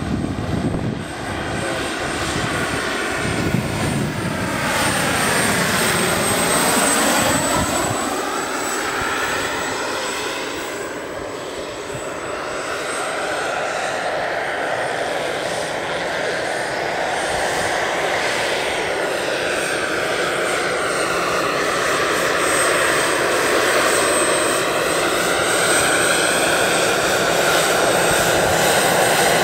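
Pahl Taurus two-stage turbine and five-blade main rotor of a large-scale RC Mi-24 helicopter in flight: a steady high turbine whine over the rotor's noise, growing louder near the end as the helicopter comes in close.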